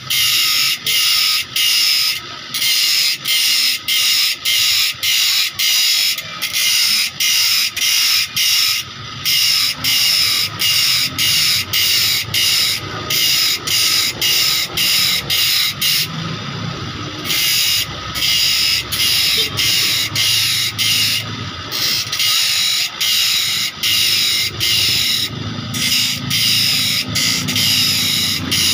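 Bench grinder's thin abrasive disc grinding teeth into a steel hand saw blade: a loud, high grinding hiss broken by short gaps about two or three times a second as the blade is moved along, with a longer pause about halfway.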